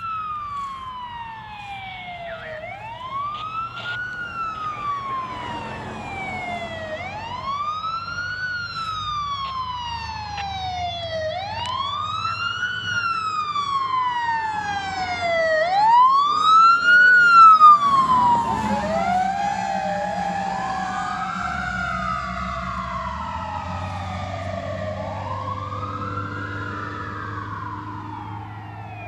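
Fire department vehicle siren on wail, rising and falling about every four seconds, over the low rumble of a vehicle engine. About two-thirds of the way through, a second siren joins, sweeping out of step with the first.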